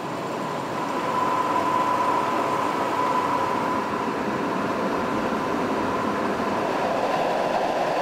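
Tractor-drawn Lely Terra power harrow and Combi-Pneumatic seed drill at work in ploughed soil: a steady mechanical running noise with a constant whine through it.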